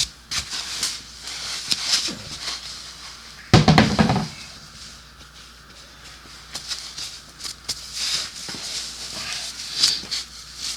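Handling noises from someone working on a motorcycle: scattered small clicks and rustling, with one loud, low thump about three and a half seconds in.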